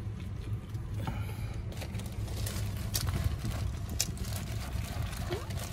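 Car engine idling, a steady low rumble heard from inside the vehicle, with a few scattered clicks and knocks.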